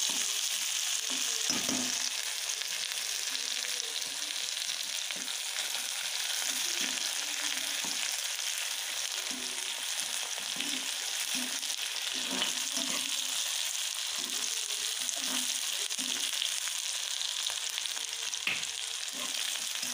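Chopped onion, spring-onion greens and green chillies sizzling steadily in hot oil in an aluminium kadhai while being stirred with a metal slotted spatula. They are being sautéed until they turn pink.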